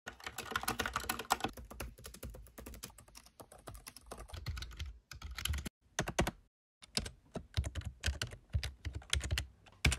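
Typing on a computer keyboard: a fast run of key clicks, breaking off briefly about halfway, then single keystrokes about two or three a second.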